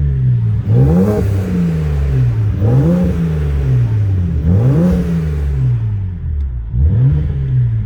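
BMW 335i's turbocharged straight-six revved in four quick throttle blips, each climbing sharply in pitch and falling back. It carries a strange deeper noise, possibly from the exhaust, that the owner suspects has to do with the turbos.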